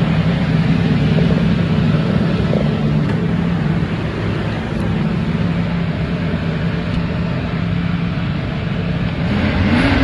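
A 1977 Chevrolet Caprice's engine idling steadily, heard from inside the car's cabin. Near the end its pitch briefly rises and falls again.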